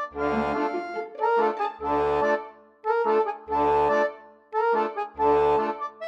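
Background music: an instrumental tune of sustained chords over a low bass note that returns about every second and a half.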